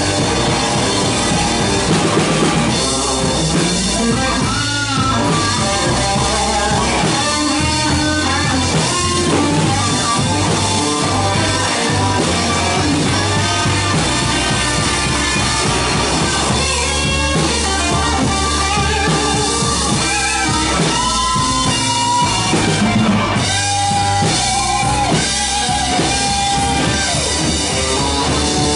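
Live blues band playing an instrumental passage: electric bass, drum kit, keyboard and electric guitar.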